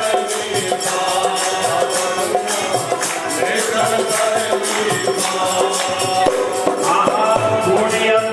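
Himachali devotional bhajan kirtan music, with held melody lines over a steady rhythm of high, evenly spaced percussion strokes.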